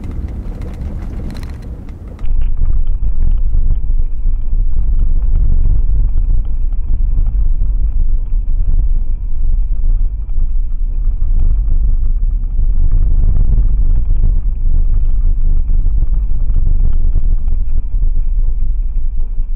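Heavy low road rumble from a 2017 Toyota 4Runner driving on a dirt road, tyres and engine, inside the cabin. About two seconds in it switches to a cheap dash cam's built-in microphone and turns much louder, muffled and boomy, with a faint steady high whine over it.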